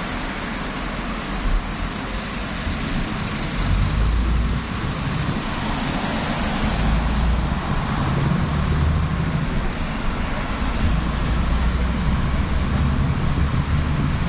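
Road traffic on a busy highway: a steady mix of engine rumble and tyre noise from passing cars and heavier vehicles, with a deeper rumble building from about three and a half seconds in.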